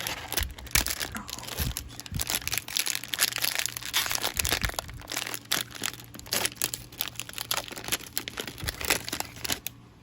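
Plastic wrapping of a trading card value pack being torn open and crinkled by hand, an irregular run of crackles that stops just before the end.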